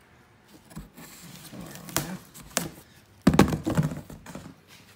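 A cardboard shipping box being handled and opened: scraping and a few sharp clicks, then a louder thump a little past three seconds in.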